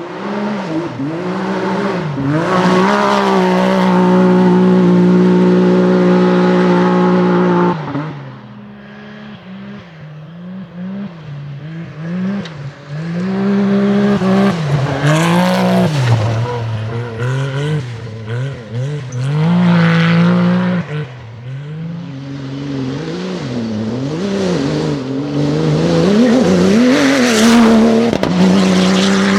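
Rally car engine at hard throttle, revving up and down as the driver shifts and lifts, with a long high-revving pull early on and another near the end, with some tyre squeal.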